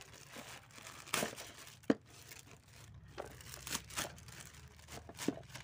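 Plastic courier mailer bag crinkling as it is handled and opened by hand: irregular rustles with a few sharp crackles.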